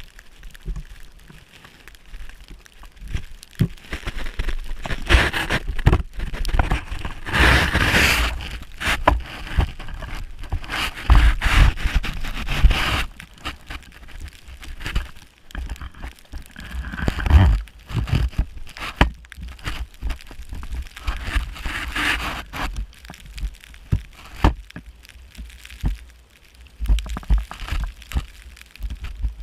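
Snowboard scraping and sliding over snow in uneven swells, with crunching and rumbling wind buffeting on the microphone.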